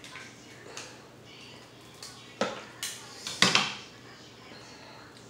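Crab legs being cracked and picked apart by hand over a metal plate: a few sharp cracks and clatters between about two and four seconds in, the last the loudest.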